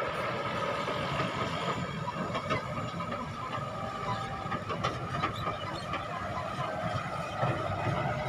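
Multi-axle dump truck driving slowly over rough dirt: its diesel engine runs steadily while the body and tipper rattle and clank over the ruts.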